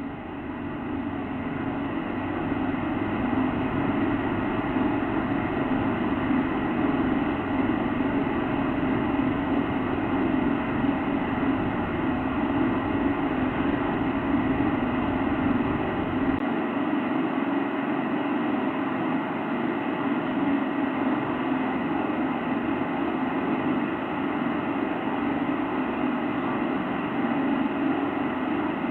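A steady, unexplained drone with several held tones, strongest low down. The deepest rumble drops away a little past halfway while the rest runs on unchanged.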